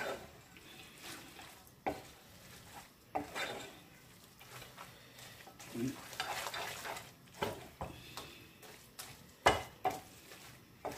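Wooden spoon stirring and tossing spaghetti in creamy carbonara sauce in a pan: wet swishing and scraping, with several irregular knocks of the spoon against the pan.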